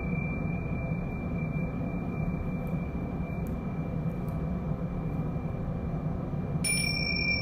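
Gong ringing in a sustained, wavering low hum with a thin high tone over it. Near the end a bright metallic strike sets off a new, higher ringing.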